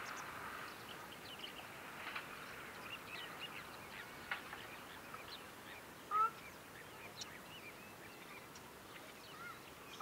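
A ruddy shelduck calls once, about six seconds in, a short pitched call. Faint short chirps and ticks of small birds go on throughout.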